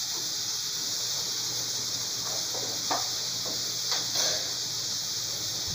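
Pressure cooker on a gas stove hissing steadily as it vents steam while the potatoes cook, with a few faint light clicks about three and four seconds in.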